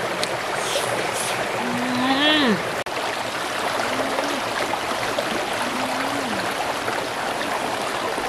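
Shallow stream running over rocks, a steady rush of water. Over it come a few short hummed 'mmm' sounds from a woman, each holding one pitch then falling; the loudest is about two seconds in, with softer ones near four and six seconds.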